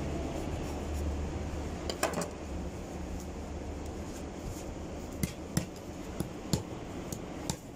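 Large kitchen knife cutting into a whole catfish and knocking against a bamboo cutting board: a handful of sharp knocks, one about two seconds in and most in the last three seconds, over a low steady hum.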